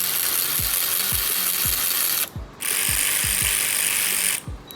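Cordless electric 3/8-inch ratchet spinning at full speed with the trigger pressed all the way in. It gives a loud, steady whir that stops briefly about two seconds in and again just before the end.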